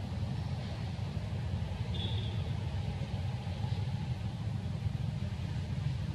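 Steady low rumble of outdoor background noise, with a brief faint high tone about two seconds in.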